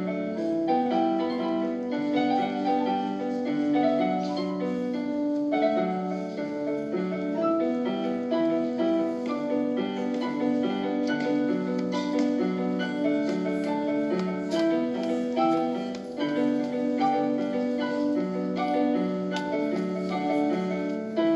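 Digital piano being played: a steady, flowing piece built from repeating note patterns, mostly in the middle register.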